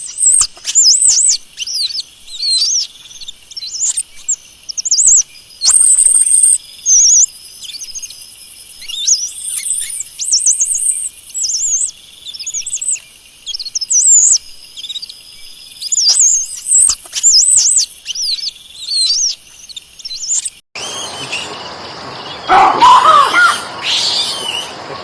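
Monkeys giving many quick, high-pitched chirping and whistling calls that sweep up and down in pitch. About 21 seconds in the sound cuts abruptly to a noisier recording with lower, rougher calls.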